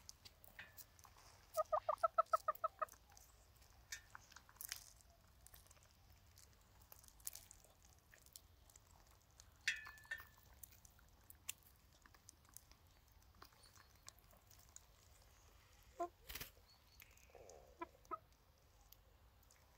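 Hens clucking: a quick run of about eight clucks about two seconds in, then a few scattered single calls and soft clucks, with small clicks in between.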